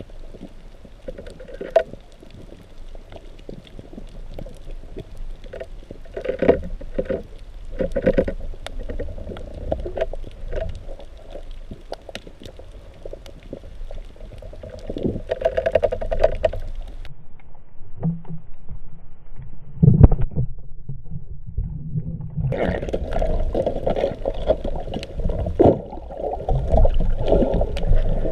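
Muffled underwater noise picked up through a GoPro's waterproof housing while freediving: a low rumble of water movement with scattered clicks and knocks. It goes quieter past the middle, then there is one sharp, loud thump about twenty seconds in, followed by louder water noise.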